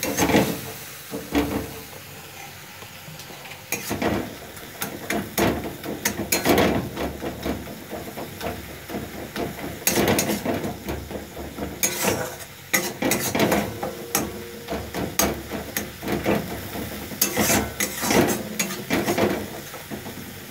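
A metal spatula scrapes and knocks against a steel kadai in irregular clusters while masala is stirred and sautéed, with the frying masala sizzling low underneath.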